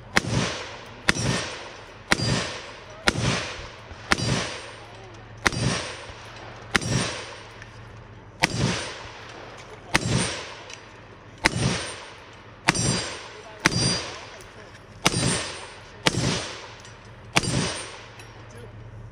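Gunshots in a steady string, about sixteen at roughly one shot a second, each with a short ringing tail.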